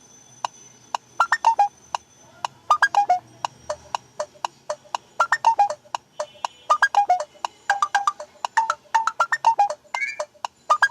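Phone ringtone from the Viper OS custom ROM on a Samsung Galaxy J2: a quick electronic melody of short notes with sharp attacks, starting about a second in, in repeated falling runs.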